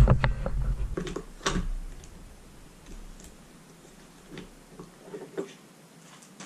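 Scattered light clicks and taps of plastic parts and a screwdriver being handled on a Dyson DC43 vacuum's housing, the sharpest about one and a half seconds in.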